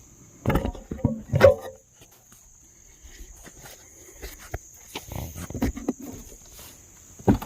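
Knocks and rustling as the camera is picked up, then irregular footsteps and handling noise while walking, with one sharp knock near the end. Crickets trill steadily throughout.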